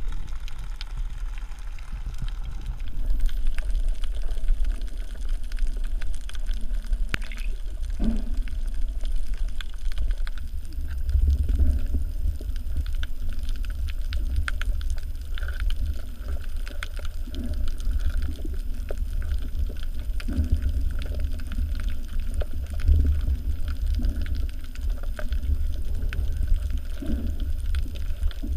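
Underwater sound picked up by the camera in its housing: a steady low rumble of water moving past the housing, with scattered faint clicks and crackles and a few soft low swells.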